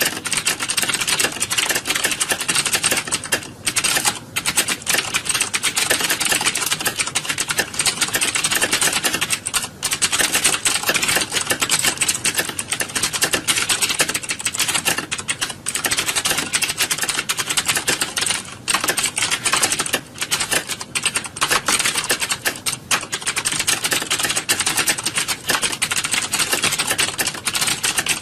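Rapid typing on computer keyboards: a dense, continuous clatter of key clicks, like many keyboards going at once, with a few brief lulls.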